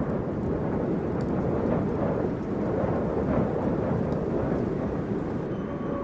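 Steady rushing wind noise, with a held tone coming in near the end.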